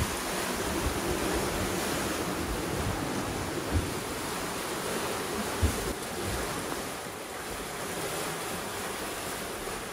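Open-ocean water rushing and splashing along the hulls of a sailing catamaran under way, with steady wind. Wind buffets the microphone in a couple of brief low thumps about four and six seconds in.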